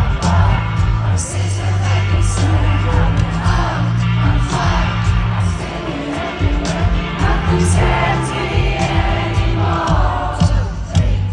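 Live pop music over a concert sound system: a woman sings over a slow band backing with a heavy, steady bass, and the crowd sings along.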